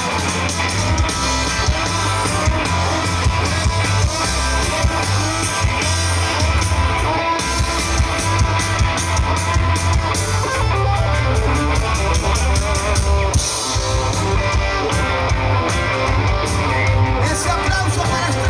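Live rock band playing a song at full volume: electric guitars, a heavy bass line and a drum kit with steady beats, with sung vocals over the top.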